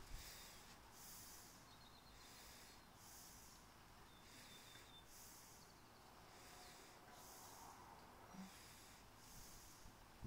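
Near silence: faint background hiss that swells and fades evenly, a little more than once a second.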